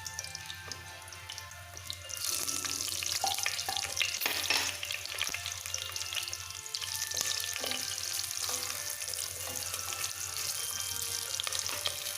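Sliced shallots sizzling and crackling in hot coconut oil in a pressure cooker as they brown. The sizzle gets louder about two seconds in.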